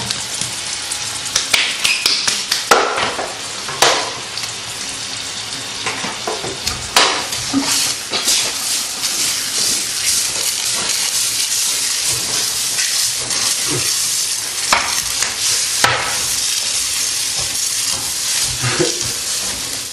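Beans frying in a pan with a steady sizzle, stirred with a utensil that scrapes and knocks against the pan now and then.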